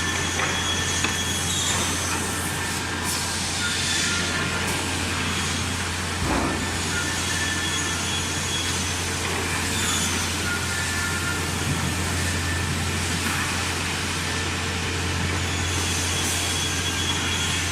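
Six-sided CNC boring machine running: a steady low hum, with short high-pitched whines starting and stopping every second or two and a few brief noisy strokes between them.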